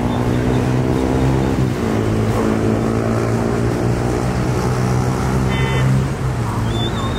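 A vehicle engine runs steadily with a low hum, and a short high-pitched beep sounds about five and a half seconds in.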